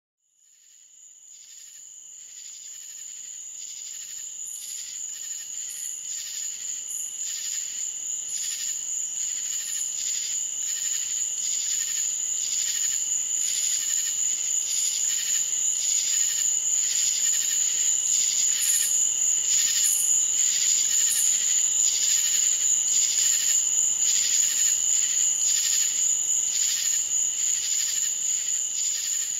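A chorus of night insects such as crickets: a steady high-pitched trill with regular pulsing chirps over it. It fades in from silence over the first several seconds and then holds steady.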